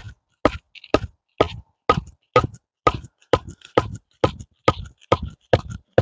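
A block of wood hammering the top of a wooden stick to drive it into the ground and knock a hole, in steady knocks about two a second.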